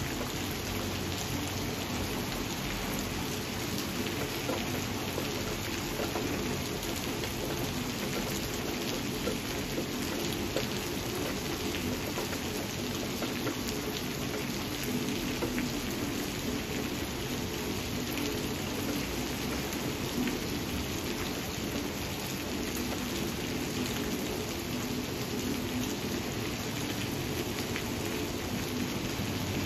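Steady heavy rain falling on leafy vines, an even hiss dotted with the fine ticks of individual drops.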